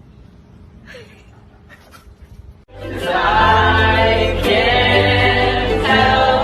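Faint low-level sound for the first couple of seconds, then sung music with a strong bass line starts suddenly almost three seconds in.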